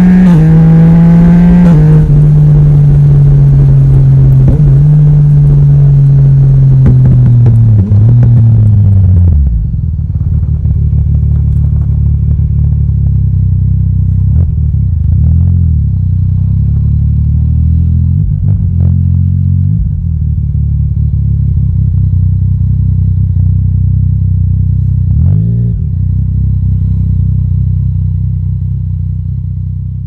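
Yamaha Tracer 900 GT's 847 cc inline-three engine through an Akrapovic exhaust, running on a Woolich dyno tune. It runs on a closed throttle with its pitch falling as the bike slows, drops to idle about nine seconds in, then idles steadily with a few short throttle blips.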